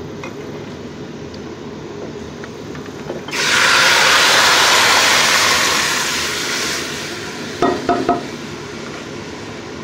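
A ghee tadka of fried onion, garlic and cumin sizzles low in a karahi. About three seconds in, cooked daal is poured onto the hot fat and it bursts into a loud hiss, which dies down over the next few seconds. A few light clinks follow near the end.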